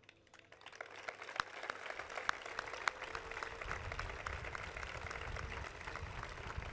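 Crowd applauding. The clapping builds up during the first second or two, then carries on as a steady patter of many hands.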